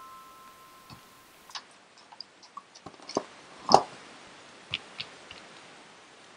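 Light scattered clicks and taps from handling a hot glue gun and pressing felt pieces on a table, with one louder knock a little past halfway.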